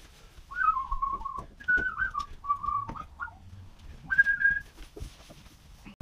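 A man whistling a tune: clear single-pitched notes held and stepping between a few pitches, in several short phrases with pauses between them. A few short clicks come between the notes.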